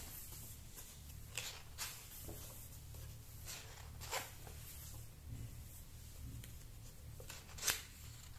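Pages of a large hardcover comic album being turned by hand: a series of brief paper swishes and rustles, the loudest near the end, over a faint low hum.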